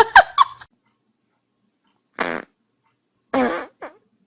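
Farts: a short buzzy one about two seconds in, then a longer one that wavers in pitch a second later, with a brief squeak just after.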